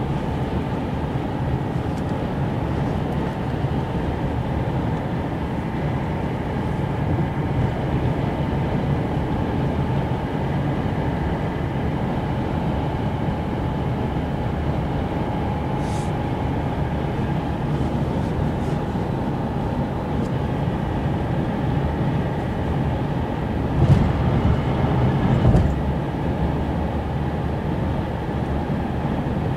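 Steady road and engine noise inside a car's cabin at highway speed. It is briefly louder twice, a little before the end.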